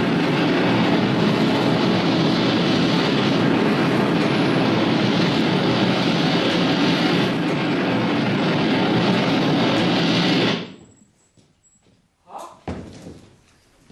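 A loud, steady rushing noise that cuts off abruptly about ten and a half seconds in, followed by a lull and a few brief sounds near the end.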